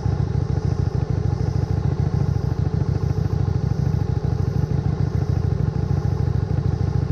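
Motorcycle engine running at a steady speed, a rapid even pulsing.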